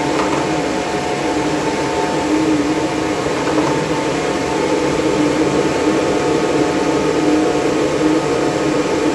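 Steady, loud whir of running Antminer cryptocurrency-mining machines' cooling fans, with a few steady humming tones over the rush of air.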